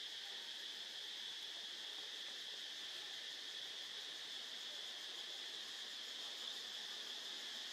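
Steady, high-pitched chorus of insects, with no other sound standing out.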